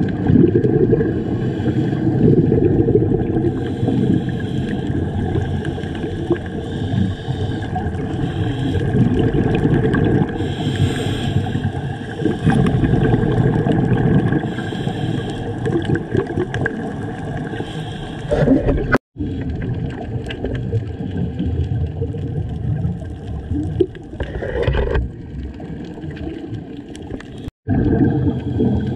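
Muffled underwater noise heard through a dive camera's housing: a continuous low churning rumble with gurgling bubbles, of the kind a scuba diver's regulator sends out. It cuts out abruptly twice, for a split second each time, about two-thirds of the way through and near the end.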